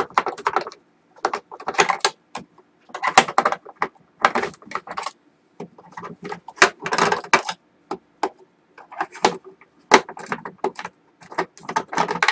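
A hand screwdriver turning screws out of the plastic base of a UPS case: irregular bursts of clicking and scraping.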